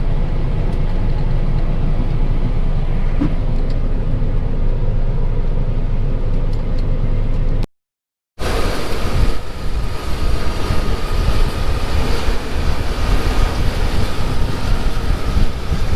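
Combine harvester running steadily during soybean harvest. About halfway through, a brief cut gives way to a louder, busier run with a faint steady whine from the machine.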